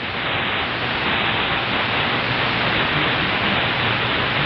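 Steady shortwave static hiss from a software-defined radio receiver in AM mode, tuned between stations on the 25-metre band with no clear signal coming through.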